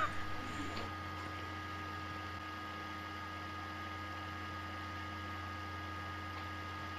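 Steady electrical hum with faint hiss and a few thin steady tones on a phone line while the call is on hold, waiting to be transferred to another department.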